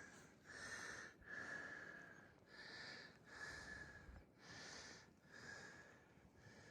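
A hiker breathing hard, faint but audible breaths in and out about once a second, winded from a climb.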